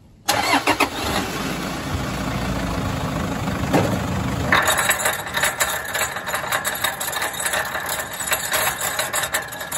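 Toyota four-wheel drive's front driveline heard from beneath the vehicle, running with a rough rumble. About four and a half seconds in, a fast clattering and knocking joins in and keeps going, the noise of a busted drivetrain.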